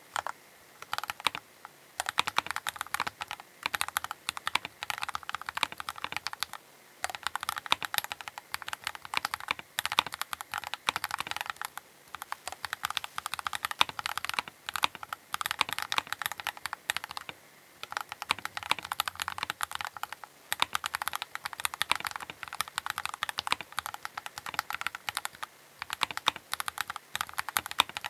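Keychron K8 Pro mechanical keyboard being typed on: fast runs of key clicks and clacks in bursts of several seconds, broken by brief pauses.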